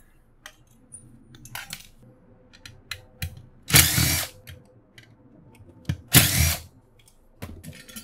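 Cordless DeWalt driver running in two short bursts, about four and six seconds in, backing screws out of a microwave magnetron. Light clicks and clatter of parts and hand tools being handled come between the bursts.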